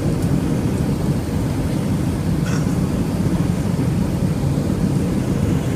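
Steady rumble of an Airbus A320's engines and airflow, heard inside the passenger cabin, with a faint steady tone.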